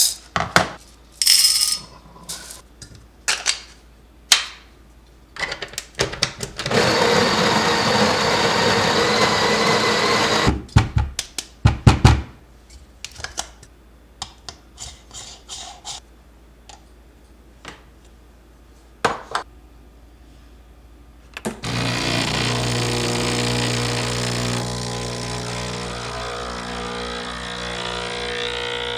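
Espresso shot being prepared on a Breville Barista Express. First scattered clicks and knocks, then the built-in conical burr grinder runs steadily for about four seconds. After it come several sharp knocks of the portafilter being handled and tamped, and from about three quarters of the way in the machine's vibratory pump hums steadily as it pulls the shot.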